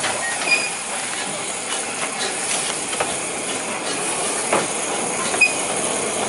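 2 ft narrow-gauge Bagnall steam locomotive moving off slowly with its passenger carriages, giving a steady steam hiss, with a few irregular clicks of the carriage wheels over the rail joints.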